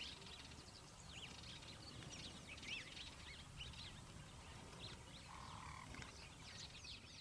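Faint birdsong from several small birds: many short, quick chirps and whistles, with one short steady note about five seconds in, over a low background rumble.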